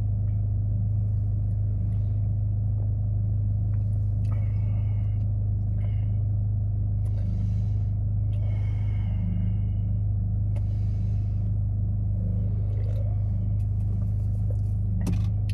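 Steady low rumble of an idling car heard from inside the cabin, with a few faint short sounds as an energy drink is sipped from the can, and a sharp click near the end.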